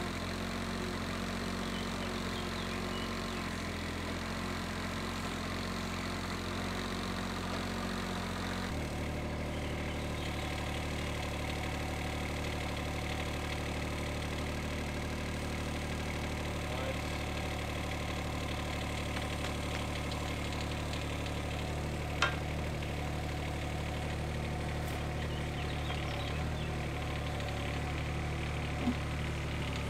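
Mini excavator's diesel engine running steadily, its note shifting about nine seconds in, with a single sharp click a little past twenty seconds.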